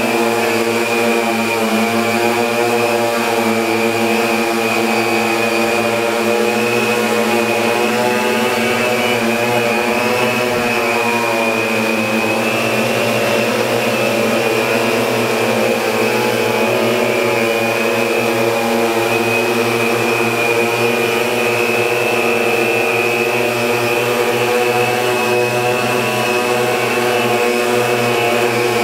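Sky-Hero Spy 750 Y6 hexacopter hovering on 17-inch propellers: the steady buzz of its six motors and props, with a high whine on top, the pitch wavering slightly as the throttle keeps correcting to hold position.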